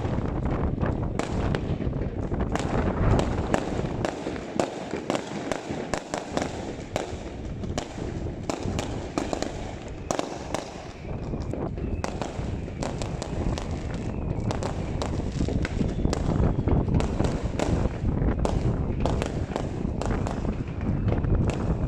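Many fireworks going off at once: a dense, unbroken run of sharp bangs and crackles over a continuous low rumble of booms.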